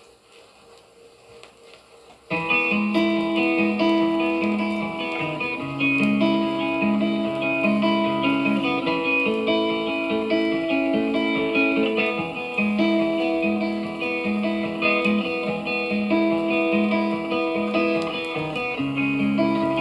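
Faint background noise for about two seconds, then a guitar intro starts suddenly: plucked and strummed guitar notes moving through a repeating chord pattern, with no singing yet.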